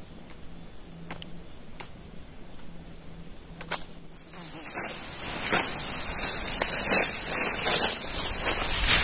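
An insect buzzing faintly in short on-and-off spells, with a few light clicks. From about four seconds in, loud uneven rustling and scraping noise takes over.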